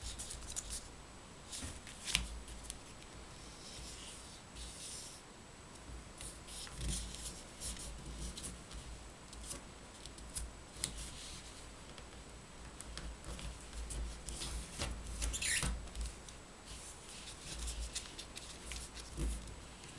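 Printed paper rustling and crinkling as hands fold and crease it into an origami model, in irregular crisp bursts, with a sharp snap of the paper about two seconds in.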